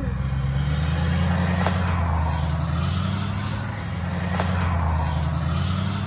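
Ford F-350 plow truck's engine running steadily close by, a low even drone with a hiss above it and two faint clicks.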